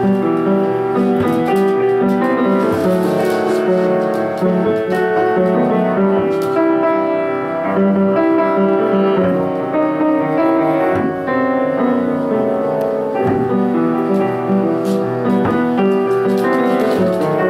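Upright piano played from sheet music: a continuous flow of chords and melody notes without pause.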